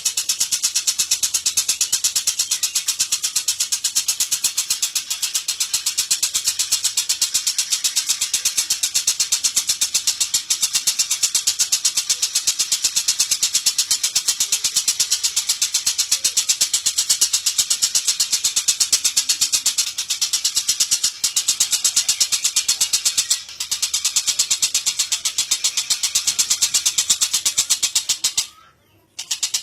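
Lovebird giving its long, very rapid, high-pitched chattering trill (ngekek). It runs almost unbroken, with two brief breaks and a pause of about a second near the end.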